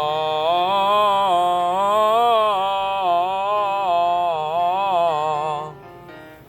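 A single voice singing a sustained 'ah' vowel in a vocal exercise, stepping up and down among a few close notes with a slight waver. It stops about five and a half seconds in.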